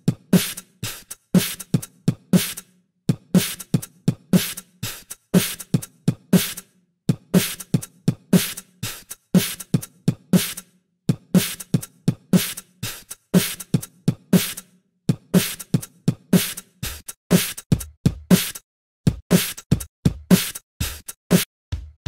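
Beatboxed drum beat built from one chosen kick, hi-hat and snare copied across the pattern: each hit starts and stops cleanly with silence between, with no breathing or lip noise. The beat repeats about every two seconds, and deeper kicks come in near the end.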